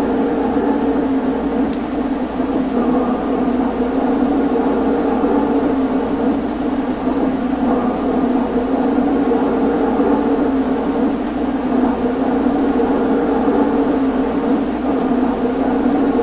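HO scale model electric locomotives running along the layout: a steady whir of their motors and gearing as the train rolls on the track, with one faint click about two seconds in.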